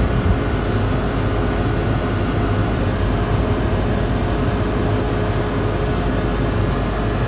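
Steady drone of a ship's engines and machinery heard on deck: a low hum and one held tone over a constant rushing noise.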